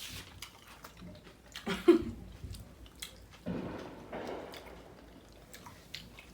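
A person chewing sushi close to the microphone, with wet mouth clicks and one loud sharp sound about two seconds in.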